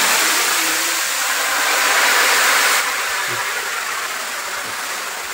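Hot-oil tempering (tadka) of dried red chillies and curry leaves hitting a large pot of khichdi, sizzling loudly. The sizzle eases about three seconds in and slowly dies down.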